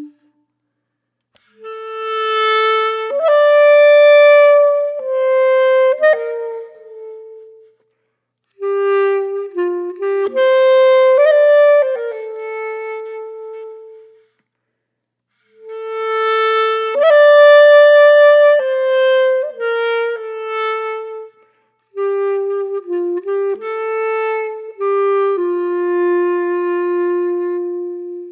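Background music: a solo woodwind melody of held notes, in four phrases with short silences between them.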